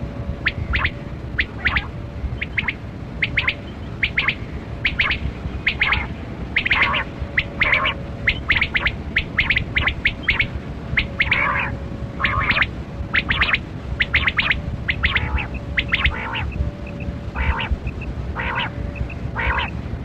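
Male rain quail (black-breasted quail, 'kali kirak batera') calling: a fast series of short, sharp notes, often in pairs, several a second, over a faint steady hum and low background noise.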